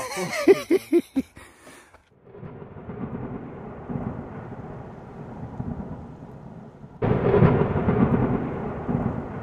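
Brief voices at the start, then a thunderstorm sound effect under the title card: a steady low rumble with rain-like hiss that swells suddenly about seven seconds in and then slowly dies away.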